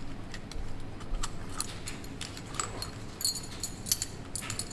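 Small metal clicks and clinks from a puzzle padlock and its keys being turned and handled, with a brief high metallic ring about three seconds in.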